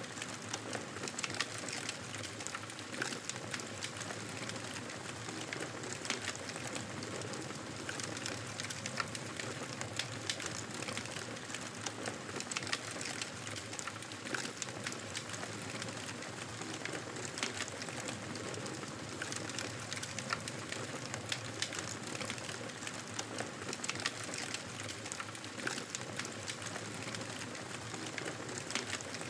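Campfire burning, a steady hiss of flames with frequent small crackles and pops from the wood throughout.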